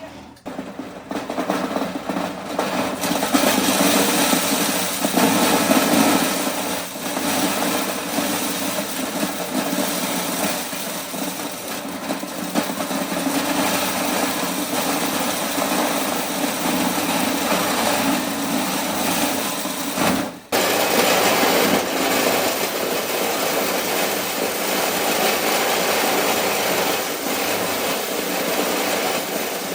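Engine-driven corn sheller running steadily, a loud mechanical clatter and engine drone as it separates kernels from the cobs. It builds up over the first few seconds and breaks off sharply for a moment about twenty seconds in.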